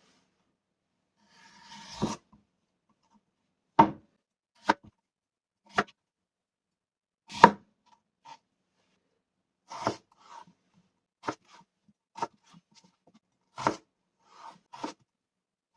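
Kitchen knife cutting daikon radish on a cutting board: about a dozen separate cuts, roughly a second apart, each ending in a sharp knock on the board.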